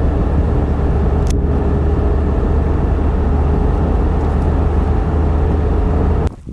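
Waterfall: a loud, steady rush of falling water with a heavy low rumble, cutting off suddenly about six seconds in.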